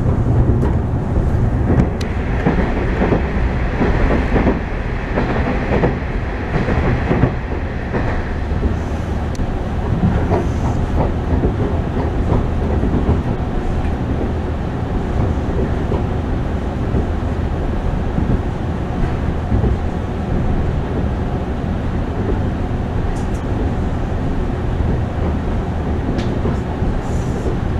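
Diesel railcar running at speed, heard from inside the carriage: a steady running noise of wheels on rails, with wheels clicking over rail joints, busiest in the first eight seconds or so.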